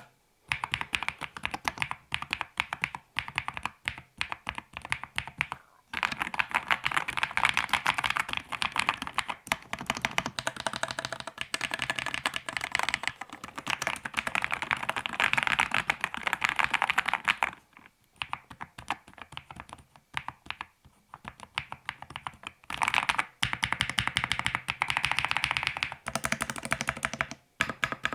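Fast typing on an Akko SPR67 custom mechanical keyboard fitted with unlubricated stock switches: a dense run of keystrokes, sparser from about 18 to 22 seconds in.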